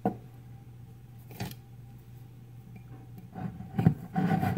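Two light knocks, then from about three seconds in a small blade scraping and rasping against the foil capsule on a wine bottle's neck, cutting it off to get at the cork.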